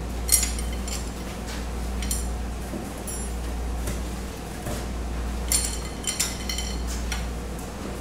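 Steel pushrods clinking and ringing as they are pulled from a Farmall H engine and set down: a run of sharp metallic clinks, bunched near the start and again in the second half. A steady low air-conditioner hum runs underneath.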